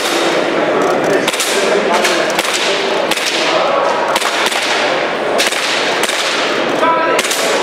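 Airsoft pistol firing a string of sharp shots, roughly one a second, each echoing briefly off the walls of the indoor range.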